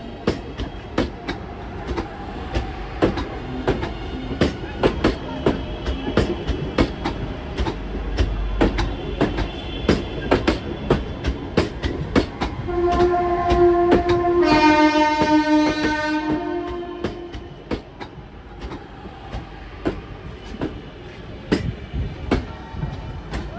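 Two coupled Class 323 electric multiple units rolling slowly past, their wheels clicking steadily over rail joints. About halfway through, a two-tone horn sounds for some four seconds, the higher note first and then the lower.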